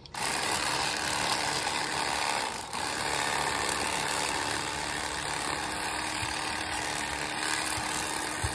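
A machine starts up abruptly and runs steadily, giving an even hiss-like noise over a faint low hum.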